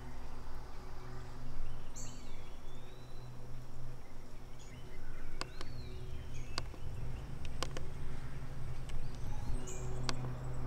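Outdoor ambience: a bird gives a few whistled calls that rise and fall, over a low steady hum, with several sharp clicks in the second half.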